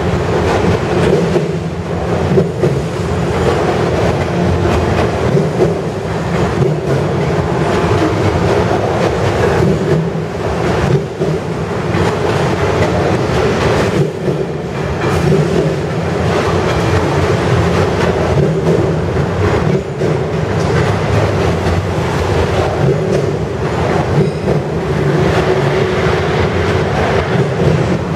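Autorack freight cars rolling past: a loud, steady rumble of steel wheels on the rails, with scattered sharp clicks as the wheels cross rail joints.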